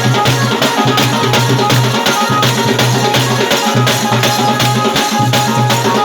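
Loud dance music driven by a fast, even drum beat, about four beats a second, over a sustained low bass tone.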